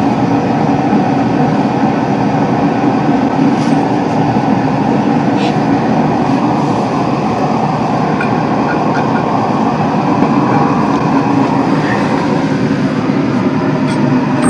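Steady, loud mechanical rumble with no change in pitch, and a few faint clinks.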